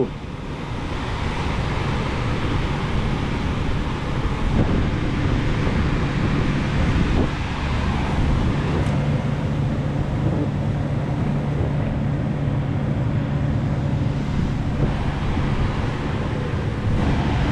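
Chevrolet car's heater blower running at high speed, a steady rush of air from the dash vents, with a steady low hum from the running car underneath from about six seconds in.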